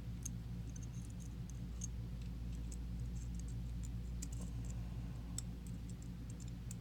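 Faint, irregular small metallic clicks and ticks as the sliders of an ASSA Desmo cam lock are worked out of the lock one by one, over a steady low hum.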